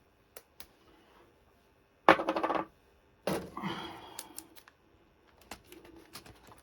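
A strip of adhesive tape is pulled off the roll with a short, loud rip about two seconds in. A second, longer rip comes about a second later, followed by scattered light clicks and taps as the tape is handled and pressed down.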